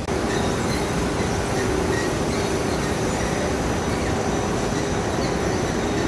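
Industrial waste-textile shredder running steadily, a dense mechanical noise with a steady drone, cutting in suddenly at the start.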